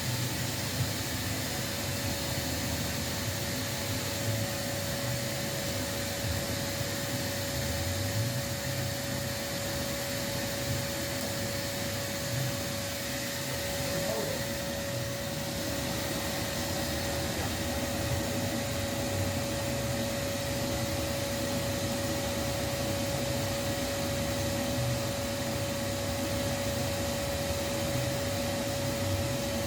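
An electric motor running steadily with a constant whine over a rushing hiss.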